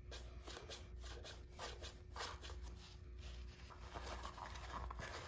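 Faint, repeated rubbing and scraping of a paper towel wiping the metal O-ring seats in a Harley-Davidson Twin Cam engine's cam chest.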